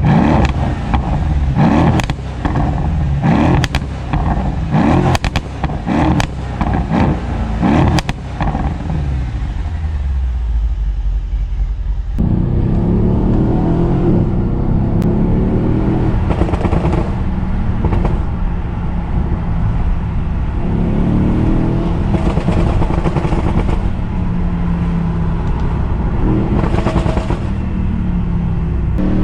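Mercedes CLS63 AMG V8 tuned with pops and bangs enabled, blipped repeatedly in the first eight seconds, with a burst of exhaust crackles and pops each time the revs drop. About twelve seconds in it settles into a steadier run with slow rises and falls in revs and an occasional pop.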